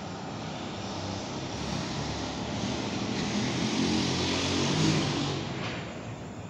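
A vehicle passing by: a broad rushing noise that swells over a few seconds, peaks near the end and then fades away.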